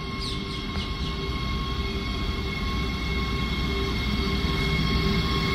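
An Indian Railways WAG-12B twin-section electric freight locomotive approaching with its wagons. A low rumble of wheels on rail and a faint steady electrical whine grow steadily louder as it nears.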